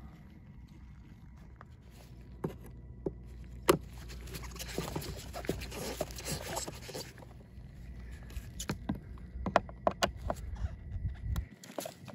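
Hand tools and hands working on a plastic RV toilet base: a screwdriver's metal tip clicking and knocking against plastic screws and housing, scattered at first, with a few seconds of rustling in the middle and a quicker run of clicks near the end.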